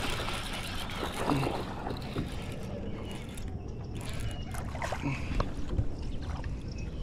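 Water splashing and sloshing as a small hooked bass is fought in shallow water, with a few light knocks.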